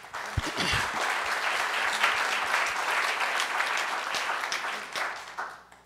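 Audience applause, with panelists on stage clapping along; it starts abruptly and fades out about five and a half seconds in.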